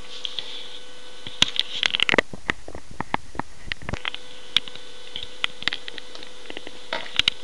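Irregular light clicks and knocks, a cluster of them in the first half and a few more near the end, over a steady low hum.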